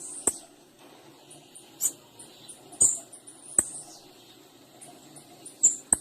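Female blue-black grassquit (tiziu) calling: a run of short, high chip notes several times a second. A few sharp clicks are mixed in.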